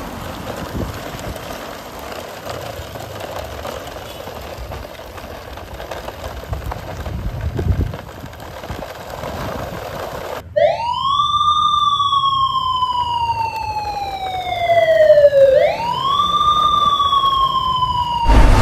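Outdoor background noise with some low rumbles, then a siren wail takes over about two-thirds of the way in. The wail sweeps up quickly and falls slowly over about five seconds, starts a second sweep, and cuts off near the end.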